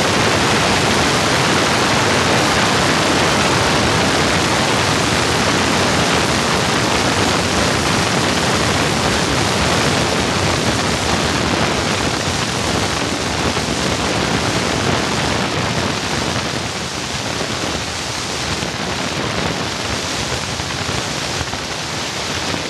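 Loud, steady rush of wind and propeller blast on an open-cockpit biplane, buffeting the microphone and hiding any clear engine note. It eases off a little in the last several seconds as the plane slows on the runway after landing.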